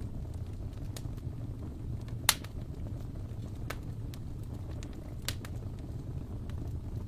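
Wood fire burning in an open fireplace: a steady low rumble with scattered crackles and pops, the loudest pop a little over two seconds in.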